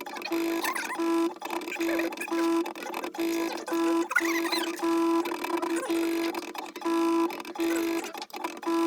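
Stepper motors of a small CNC drawing machine whining through short start-stop moves. One steady tone cuts in and out one to two times a second as the pen is driven along the drawing.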